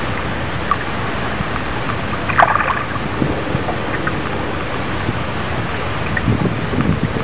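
Steady rush of wind and lapping water, with one brief sharp click-like sound about two and a half seconds in.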